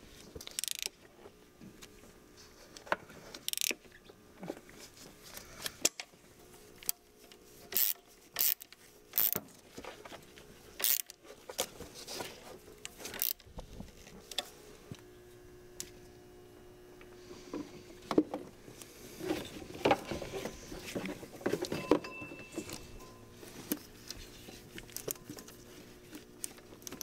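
Hand tools and small metal parts being worked as bolts and a bracket are refitted in a car's engine bay. Scattered sharp clicks and metallic taps come a second or two apart, then a busier run of rattling and clatter in the second half.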